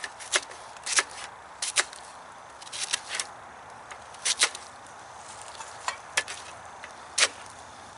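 Knife slicing a sweet onion on a plastic cutting board: irregular sharp taps as the blade cuts through and hits the board, about a dozen over the stretch.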